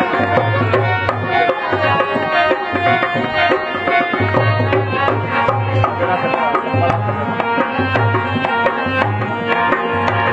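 Rajasthani folk music for a kathputli puppet show: a hand drum beating a fast rhythm with deep bass strokes, under a sustained melody.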